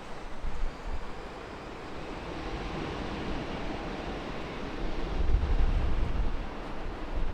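Airbus A321 jet engines at takeoff thrust: a rushing noise that grows steadily louder, with a deep rumble building strongly near the end as the airliner passes on its departure.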